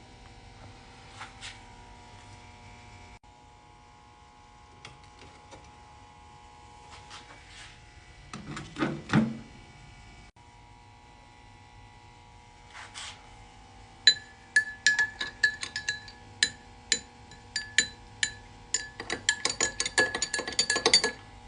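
A metal spoon clinking quickly against a ceramic mug, as in stirring a drink, starting about two-thirds of the way in and getting faster near the end, each clink ringing at the same pitch. A few soft knocks come earlier, over a faint steady hum.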